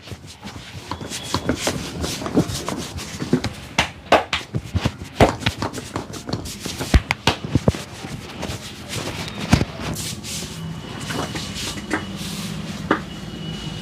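Hand slaps and pats of a barber's head and back massage, landing irregularly, several a second at times. A low engine hum from passing traffic comes in near the end.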